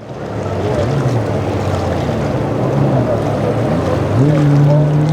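Boat engines running over wind and water noise; about four seconds in, one engine revs up and holds the higher pitch.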